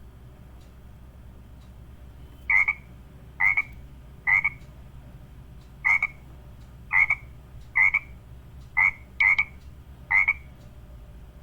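A frog croaking, nine short croaks about a second apart, beginning a couple of seconds in.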